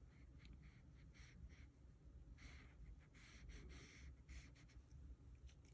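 Faint, short scratchy strokes of a fine paintbrush dabbing and drawing across textured watercolour paper, in an irregular series.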